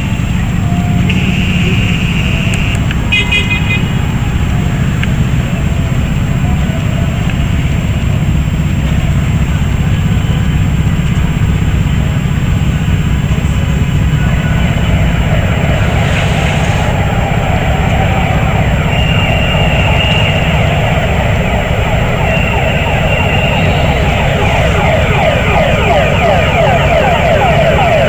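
Traffic held at a crossing: a steady rumble of waiting car engines, with car horns sounding several times, a held blast about a second in, a quick run of toots just after, and two more blasts in the second half. A clamour of many voices grows louder from about halfway through.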